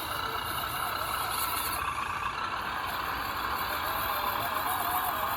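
Electric motor and geared drivetrain of an Axial SCX10 radio-controlled crawler whining steadily. The pitch wavers up and down with the throttle.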